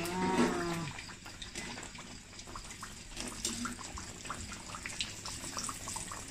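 A large curry puff frying in hot oil in a steel pan, just slid in: the oil sizzles with a dense crackle of small pops.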